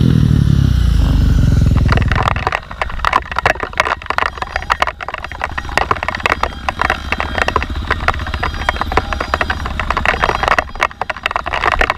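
Trail motorcycle engine running loud for about two seconds, then falling away. It leaves a dense, irregular crackle of rain drops tapping on the camera.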